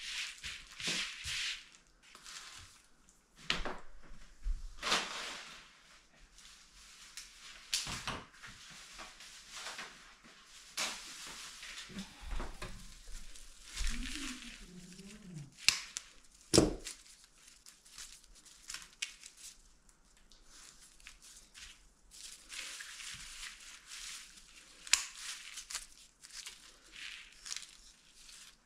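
Irregular rustling and crinkling of craft materials being handled, with sharp crackles now and then and a brief wavering squeak about halfway through.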